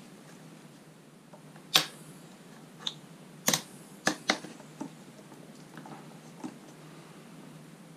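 Sharp clicks, about eight scattered over a few seconds with the loudest about two seconds in: a small one-handed bar clamp being ratcheted tight on a thin wooden band.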